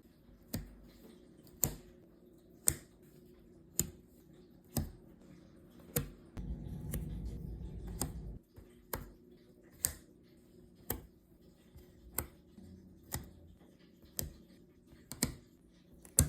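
Sharp clicks at a steady rate of about one a second over a faint low hum, with a low rumble for about two seconds in the middle.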